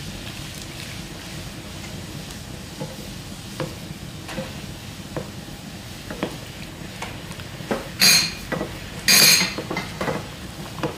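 Stirring in a frying pan of simmering soup as starch slurry is mixed in, with light clicks of the utensil against the pan over a low steady simmer. About eight seconds in come two louder, short scraping bursts, about a second apart.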